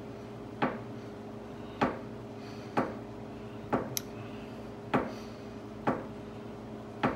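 Lever arm of a 1940 Dodge lever arm shock absorber being pumped by hand to bleed air out of the fresh fluid: a sharp clack at each stroke, about one a second, seven in all.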